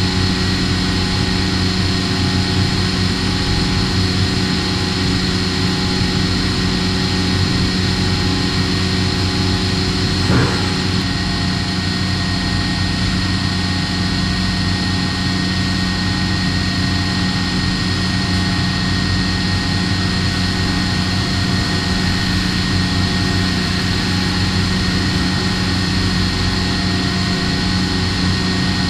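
Machining center running steadily during plateau honing of a gray cast iron cylinder liner: a constant machine hum with several fixed tones over a hiss, and one short swish about ten seconds in.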